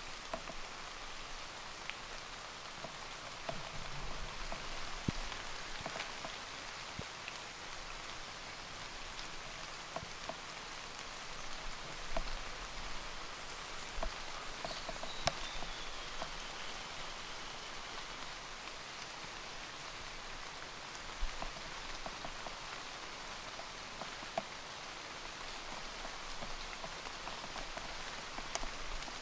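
Steady light rain falling on rainforest foliage, with scattered drops ticking close by.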